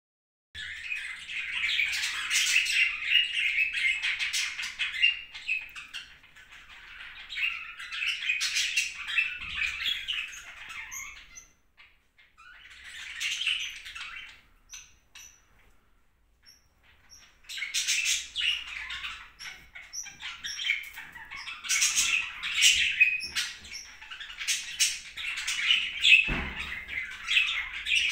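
Newborn kittens squeaking and mewing in high, chirpy spells of several seconds, with a quiet stretch in the middle. There is a soft bump near the end.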